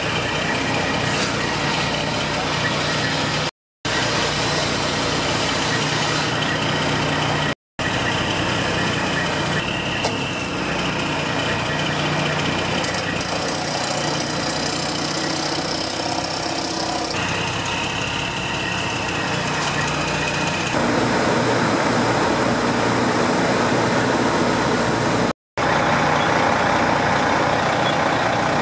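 Fire truck's engine running steadily as a constant mechanical hum. The sound drops out for an instant three times.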